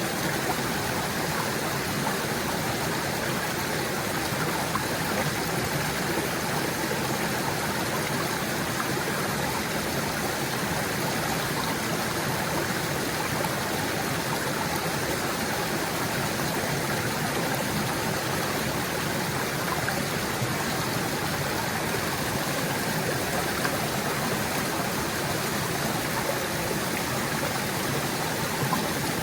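Small stream gurgling, water running steadily over stones.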